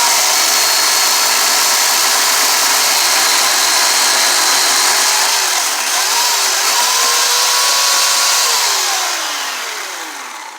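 Chainsaw running at high revs as it cuts into a wooden log. The engine pitch dips briefly about six seconds in and comes back up, then drops and fades away near the end as the throttle is released.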